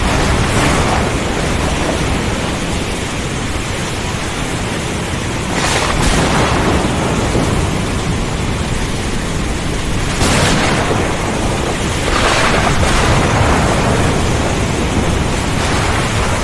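Thunderstorm: heavy rain and strong wind as a steady dense noise over low rumbling thunder. Several brief, sharper thunder cracks come through, about six, ten and twelve seconds in.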